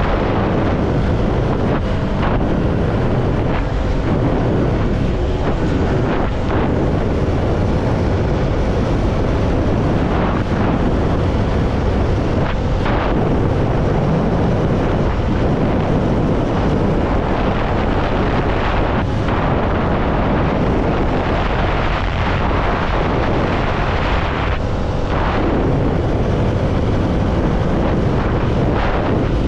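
CFMoto motorcycle riding along, engine running steadily under heavy wind rush on the microphone.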